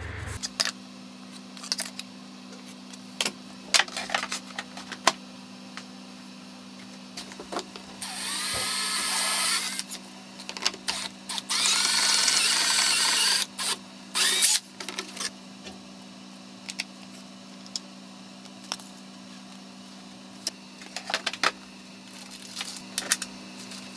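Cordless drill drilling through a sheet of opal acrylic in two bursts of about two seconds each, its motor whine rising as it spins up at the start of the first. Between and after the bursts come scattered clicks and knocks of handling the panel and parts.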